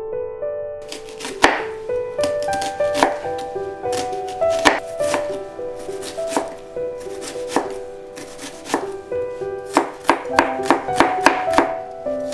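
Kitchen knife mincing onion and ginger on a cutting board: sharp strikes of the blade on the board, spaced irregularly at first, then a quicker run of about four or five a second near the end.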